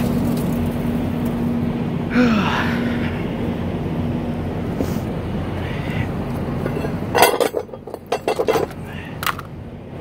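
A diesel engine idling with a steady hum. About seven seconds in, a quick series of metallic clanks and knocks, then one more click near the end.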